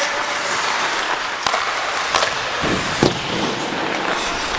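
Hockey skate blades scraping and carving on rink ice, with three sharp clacks spread through the middle.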